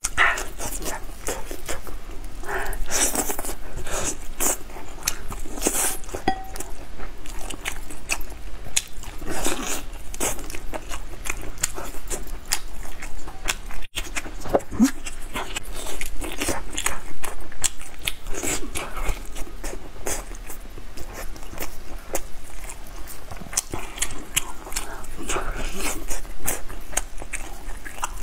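Close-miked eating: biting into and chewing red-braised pork spare ribs, a dense run of short clicks and crunches, with a brief drop-out about halfway.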